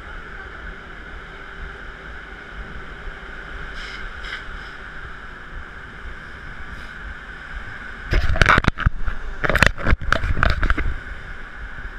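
Steady rush of sea water and wind alongside a moving cruise ship, with a faint steady hum. About eight seconds in, loud crackly rumbling on the microphone lasts about three seconds.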